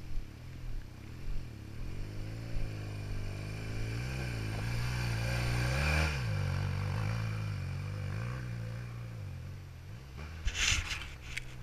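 BMW R1200GS Adventure's boxer-twin engine revving as the bike rides past through loose sand, pitch rising and falling with the throttle, loudest about six seconds in and dropping in pitch as it goes by. A few short crackling noises near the end.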